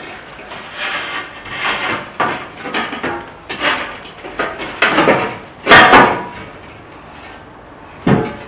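Sheet-metal chair panels being bent and folded by hand: a run of scraping and rubbing strokes as the metal flexes and slides, loudest about two-thirds of the way in with two sharp clicks, then a single knock near the end.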